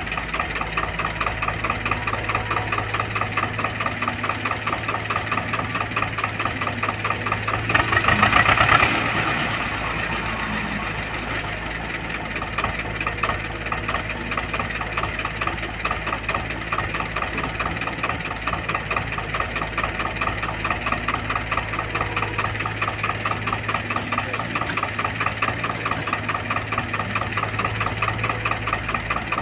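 Diesel engines idling with an even, rhythmic knock: a farm tractor close by and a crawler excavator at work. About eight seconds in, the sound swells briefly louder and then settles back to the steady idle.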